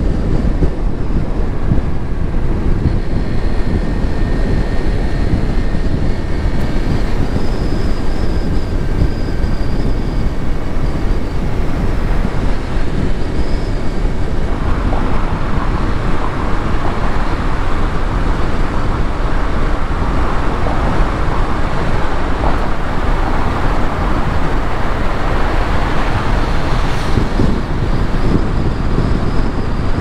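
A car driving, heard from inside: a steady low rumble of engine and tyre noise on the road. A louder hiss joins about halfway through.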